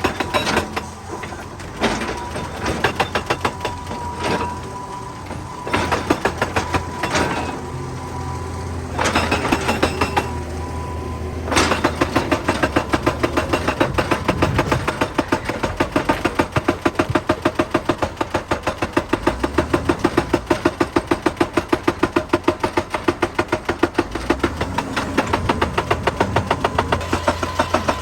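Excavator-mounted hydraulic rock breaker hammering rock, a fast run of sharp blows over the steady low hum of the excavator's diesel engine. It hammers in short bursts with pauses at first, then hammers without a break from about twelve seconds in.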